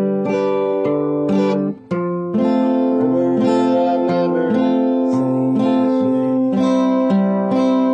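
Steel-string acoustic guitar picked with a thumb pick, a bass line moving under ringing chords; the playing breaks off for a moment just before two seconds in, then carries on.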